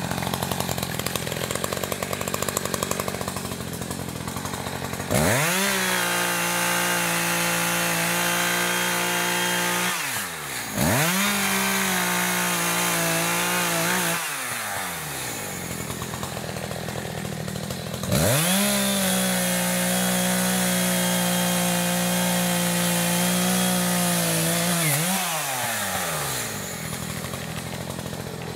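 ECHO CS-590 Timber Wolf two-stroke chainsaw revving from idle to full throttle three times, cutting into fallen logs, and dropping back to idle between cuts. The longest cut comes about two-thirds of the way through.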